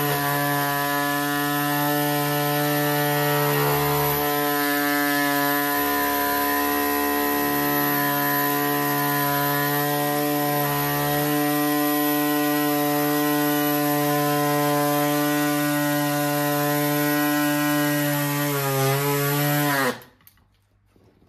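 Small pneumatic reciprocating air saw running steadily as it cuts through raw chaga: a steady whine with a hiss of air. Near the end its pitch dips and it stops abruptly.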